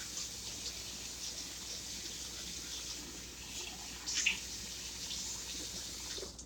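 Kitchen tap running into the sink while washing up, a steady hiss of water with a brief knock about four seconds in, shut off suddenly at the end.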